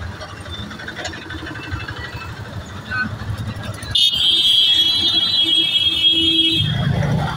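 A low rumble, then about four seconds in a loud, high, steady alarm-like electronic tone that lasts nearly three seconds and cuts off suddenly.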